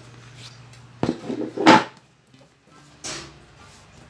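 A plastic mixing bowl clattering against the worktop as risen bread dough is turned out of it, in two quick knocks about a second and a half in. A softer handling sound follows about three seconds in.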